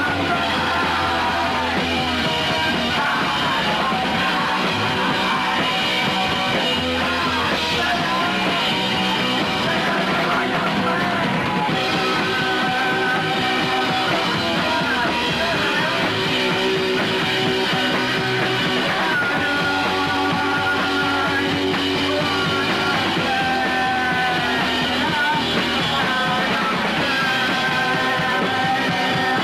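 Punk rock music: a full rock band playing with a rough, half-shouted sung vocal.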